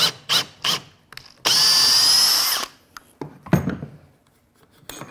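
Cordless drill running for about a second, drilling the cable hole through a cable-entry fitting clamped to the bench, after three short bursts. A few short knocks follow.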